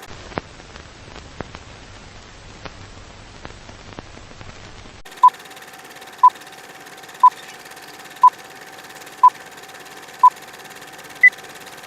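Old-film countdown sound effect. It opens with hissing, crackling film noise and scattered pops and clicks. About five seconds in, a countdown of six short beeps comes one a second over a faint steady hum, then one higher-pitched final beep.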